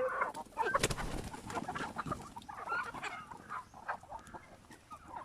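Free-range chickens clucking in short, scattered calls, with a sharp knock about a second in and light clicking throughout.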